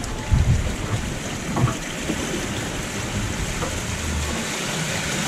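Water rushing and sloshing along an RM 890+ sailboat's hull, heard from inside the cabin under way, with a couple of low thuds in the first two seconds.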